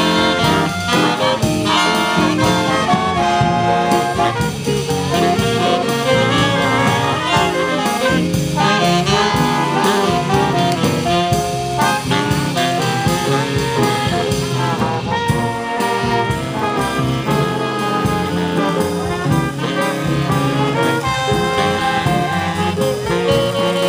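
Instrumental break in a jazz-style song arrangement, with brass and saxophone playing over the band and no vocals.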